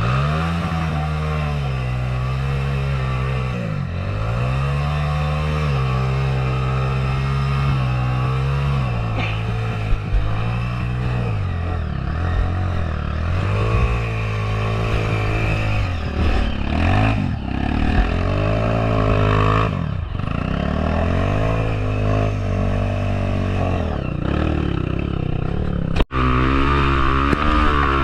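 Motorcycle engine under way, its pitch rising and falling again and again as the throttle is opened and closed, with a momentary dropout near the end.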